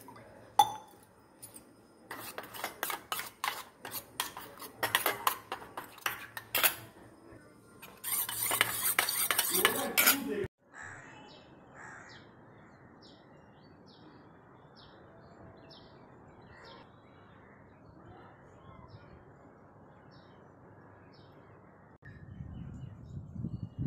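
A spoon clinks and scrapes in a small steel bowl, stirring flour into cold water, then whisks quickly in a dense rush that cuts off sharply about ten seconds in. After that there are faint, short bird chirps and a low rumble near the end.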